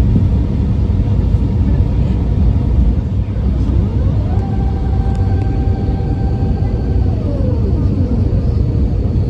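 Steady, loud low rumble of engines and airflow inside the cabin of an Airbus A350-900 on approach with its landing gear down. A thin whine rises about four seconds in, holds for about three seconds and then falls away.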